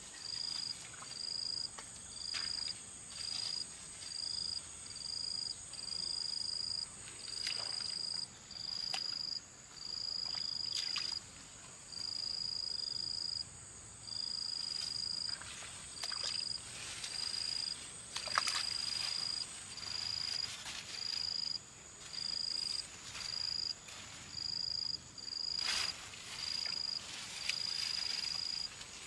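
Insects calling outdoors: a high-pitched trill in short, irregular bursts, each under a second to about a second and a half long, over a steady, even higher insect drone. Scattered sharp clicks and knocks come through now and then.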